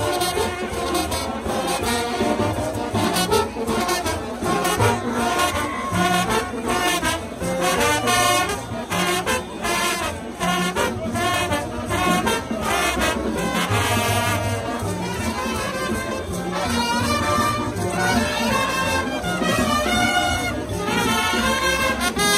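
Street brass band of trombones, trumpets and sousaphones playing live, the horns carrying the tune over a steady beat.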